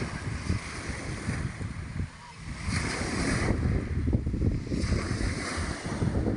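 Sea waves washing onto the shore, with surges of surf about three seconds in and again around five seconds. Wind buffets the microphone with a rough low rumble.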